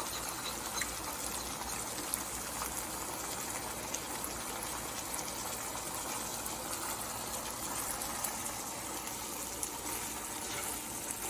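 Stir-fry of fried dace with black beans, chicken and string beans sizzling and bubbling steadily in the pan, with a few faint clicks.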